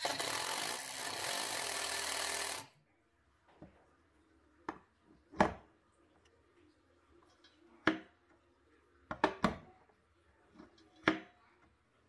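Power drill driving a screw into wood, running steadily for about two and a half seconds and then stopping. Several sharp clicks and knocks follow at uneven intervals.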